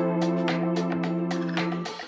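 Background music: a held bass or guitar note under a steady beat.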